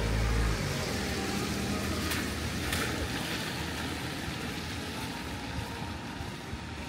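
City street traffic: a motor vehicle passes close by, its low engine rumble loudest in the first half-second, then it fades into a steady wash of traffic noise with a couple of brief knocks a few seconds in.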